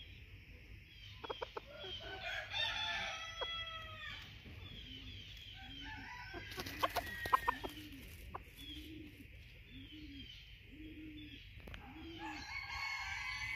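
Bantam junglefowl roosters crowing, once about two seconds in and again near the end, with a run of low, evenly spaced clucks in between. A few sharp clicks come about seven seconds in and are the loudest sounds.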